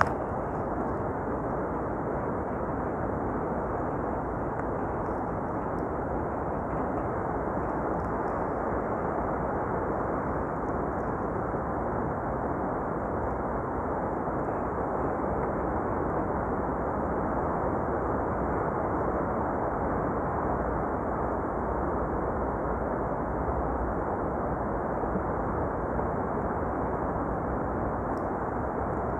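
Steady rushing of wind and breaking sea waves, unbroken and even throughout.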